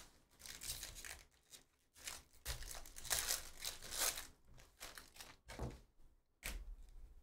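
Foil wrapper of a Panini Donruss basketball card pack crinkling and tearing as it is ripped open by hand, in several bursts, the loudest about three to four seconds in.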